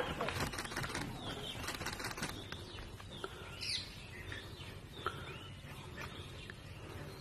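Crackling and rustling in dry leaf litter for the first couple of seconds as dholes scuffle with a chital deer, then scattered short, high chirps and whistles of forest birds.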